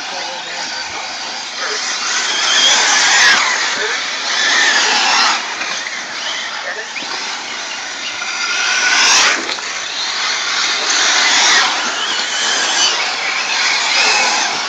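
1/8-scale nitro RC buggies racing, their small glow engines screaming at high revs and swelling louder several times as cars pass close by.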